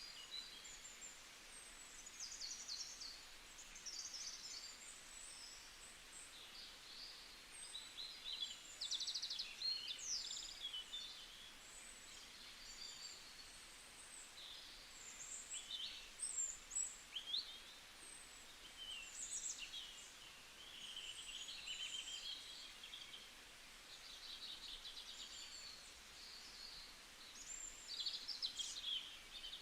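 Several songbirds chirping and trilling, quiet, with short calls and rapid trills coming one after another and often overlapping.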